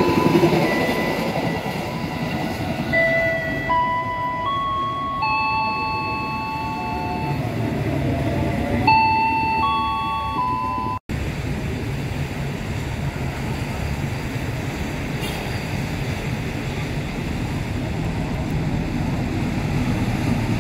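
Electric train rumbling along the tracks. For about the first ten seconds, a series of held tones steps from pitch to pitch over it, then stops. The audio drops out for an instant, and a steady rumble of train noise follows.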